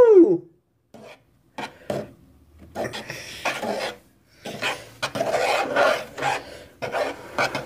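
Short, irregular scraping and rubbing strokes, sparse at first and then busy and almost continuous from about three seconds in.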